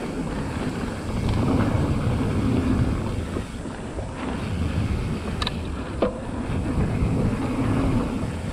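Mountain bike descending dry dirt singletrack: wind buffeting the camera microphone over the rumble of tyres rolling on hard-packed dirt and gravel, with two sharp clicks, about half a second apart, past the middle.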